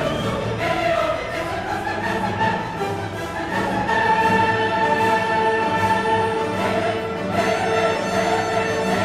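Orchestral background music with choir voices singing long, held notes.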